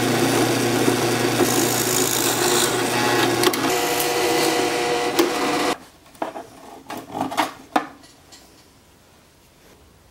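Electric drill running and boring holes into wooden pieces, then stopping abruptly about six seconds in. A few light knocks follow, then quiet.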